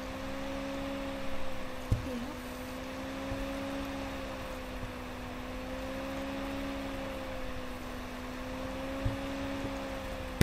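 A steady background hum over hiss, its pitch wavering slowly up and down, with two short mouse clicks, about two seconds in and about nine seconds in.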